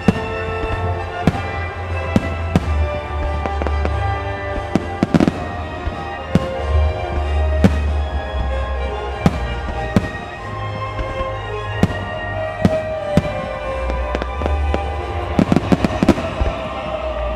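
Aerial firework shells bursting with sharp bangs about every second, in quick flurries a few seconds in and again near the end, over continuous music.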